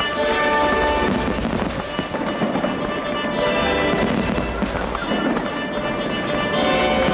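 Aerial fireworks going off in a rapid run of bangs and crackles, with music playing alongside.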